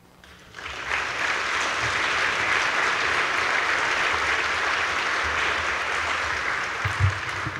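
Audience applauding. It builds up about half a second in, holds steady, and eases off near the end.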